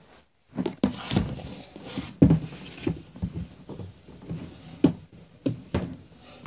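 Handling noise from the phone that is filming: an irregular run of bumps and thuds, with clothing rubbing over the microphone as it is picked up and moved.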